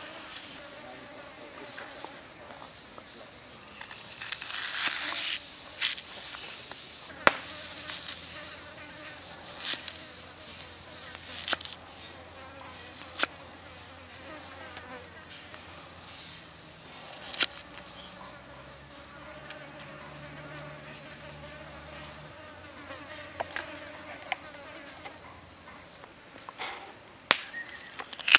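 Kitchen knife slicing onion and carrot on a wooden chopping board. The blade knocks sharply on the board at irregular intervals over a steady insect buzz.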